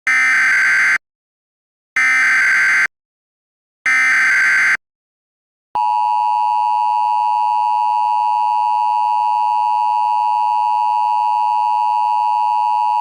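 Emergency Alert System SAME header: three one-second bursts of warbling digital data tones, about a second apart. About six seconds in, the steady two-tone EAS attention signal begins, announcing that an alert message follows.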